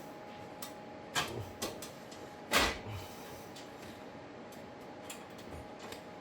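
A few scattered metal clinks and knocks of hand tools and bolts while the hub assembly's mounting bolts are being started, the loudest about a second in and about two and a half seconds in, over a steady low hum.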